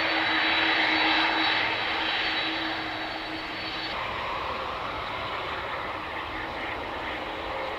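Boeing 747-400 freighter's four turbofan engines running as it rolls along the runway: a steady rushing jet noise with a high whine. About four seconds in the whine drops out and the noise eases a little.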